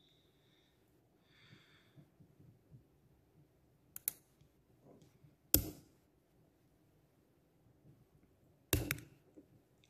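A few sharp metallic clicks, four in all with the loudest about halfway, as a small metal tool fits the wire circlip that holds the piston pin into its groove in the new piston of a Stihl MS 150 TC chainsaw engine.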